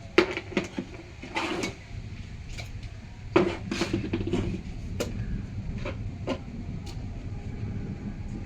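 Mixer grinder jars and lids being handled, a series of separate clattering knocks and clicks, with a steady low hum underneath.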